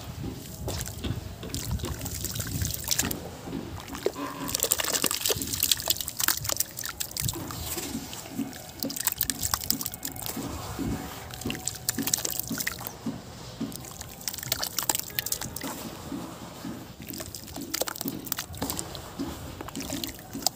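Hands crumbling gritty sand-cement chunks in a basin of water: wet sloshing, dripping and splashing of the grey slurry, with lumps plopping into the water. There is a continuous run of small sharp clicks and gloops.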